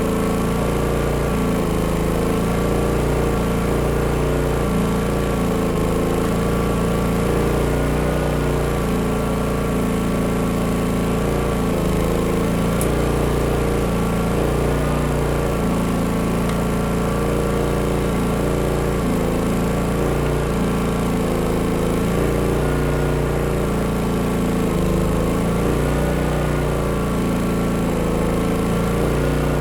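Pulsar G450RN inverter generator running steadily, its engine pitch wavering slightly.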